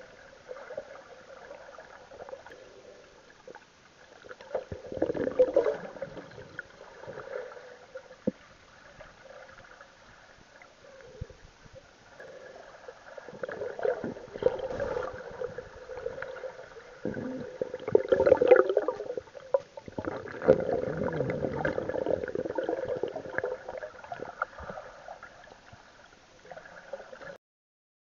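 Muffled underwater water sounds, sloshing and gurgling, picked up by a cheap action camera while submerged, over a steady faint hum. Louder swells of sloshing with knocks come about five seconds in and again from about thirteen to twenty-three seconds in. The sound cuts off suddenly near the end.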